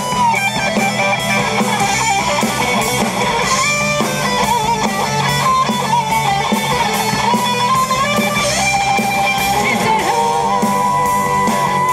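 Live rock band playing through amplifiers, electric guitars to the fore: one guitar plays a lead line with bent, sliding notes over rhythm guitar, bass and drums.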